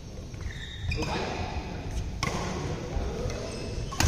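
Badminton rackets striking a shuttlecock during a rally, three sharp hits about a second and a half apart.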